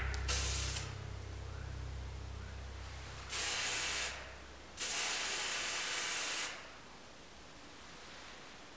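Paint spray hissing in three bursts: a short one in the first second, one about three seconds in, and a longer one of nearly two seconds about five seconds in, as grey paint is laid onto a taped-off helmet part.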